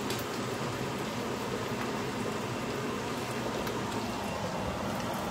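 Dried fish frying in hot oil in a pan: a steady sizzle with a couple of faint clicks.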